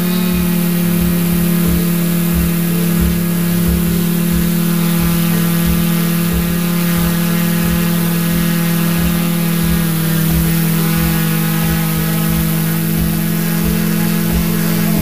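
Multirotor camera drone's propellers and motors humming steadily at a fixed pitch, picked up close by the drone's own microphone, with low irregular pulses underneath.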